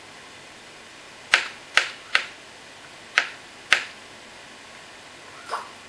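Kitchen knife chopping mushrooms on a cutting board: five sharp knocks of the blade against the board, unevenly spaced, then a fainter one near the end.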